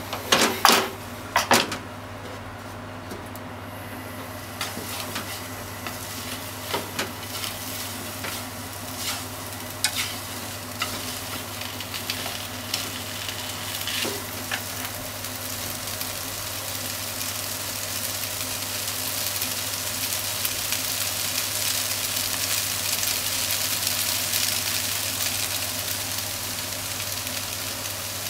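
Soba noodles, onions and meat sizzling in a frying pan while being stirred with wooden chopsticks, which click against the pan. A few sharp knocks about a second in are the loudest sounds, and the sizzling grows steadily louder through the second half.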